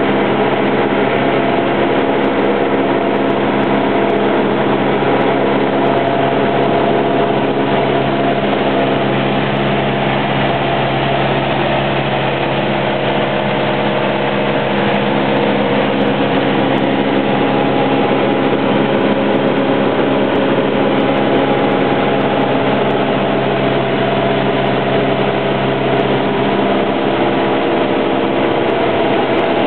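Cessna 172's four-cylinder piston engine and propeller running steadily, a constant drone with many even tones, heard from inside the cockpit.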